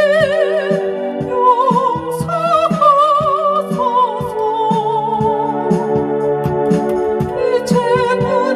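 An elderly woman singing a hymn with a wide vibrato over an electronic keyboard's organ-voiced accompaniment with a steady beat.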